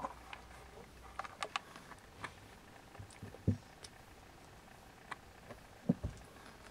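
Faint scuffling of two young kittens play-fighting on carpet: soft scattered clicks and rustles, with two dull thumps, one about three and a half seconds in and one near six seconds.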